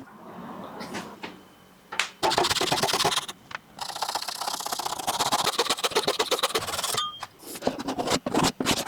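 A handheld power tool running on wood in two long stretches with a rapid pulsing buzz, starting abruptly about two seconds in, then scraping and knocking sounds near the end.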